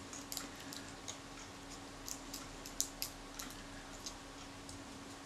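Small, irregular clicks and scrapes of a steel scalpel blade worked under the leatherette covering of a Kodak Retina IIIc camera body, levering it up rather than cutting it.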